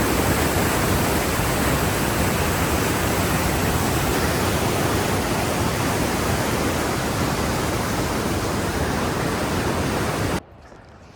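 A fast mountain river rushing loudly in a steady roar of white water. It cuts off abruptly near the end, leaving only faint background sound.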